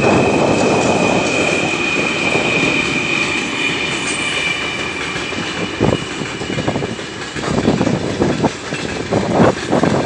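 A 3ES5K "Ermak" electric locomotive and its heavy freight train passing fast, with a steady high whine over the rumble in the first half. From about six seconds in, the wheels of the open wagons clatter over the rail joints in a run of knocks.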